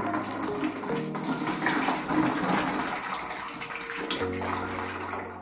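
Battery acid pouring in a steady splashing stream from an upturned 12-volt car battery into a plastic bucket.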